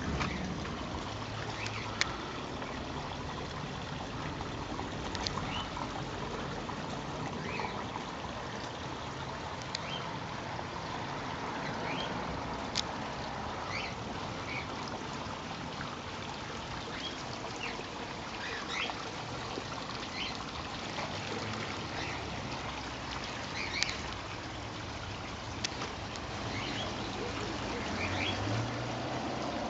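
Garden stream water trickling steadily over stones, with short bird chirps scattered throughout and a few sharp clicks.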